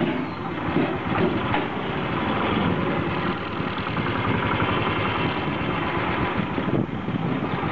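Motorcycle engine running steadily at low throttle while the bike rides along, heard from the handlebars.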